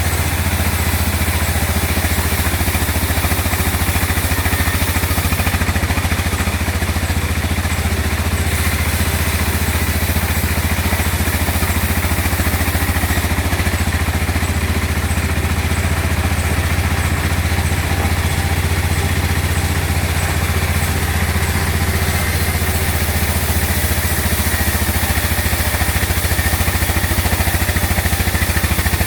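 Sawmill machinery running steadily, a constant low engine-like drone with some clatter.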